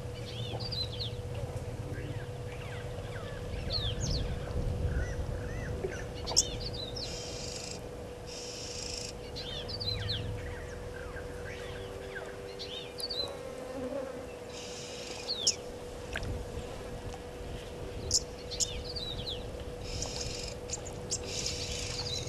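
Bush ambience: insects buzzing in high bursts of a second or two, several times, among scattered short bird chirps and whistles. A faint steady hum runs underneath.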